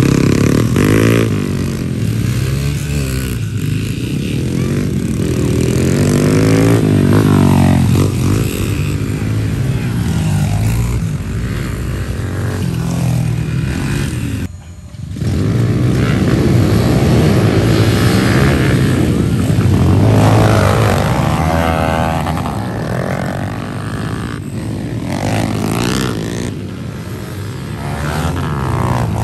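Several pit bikes and small dirt bikes racing past, their engines revving up and down, with many engine notes rising and falling over one another. The sound briefly drops out about halfway through.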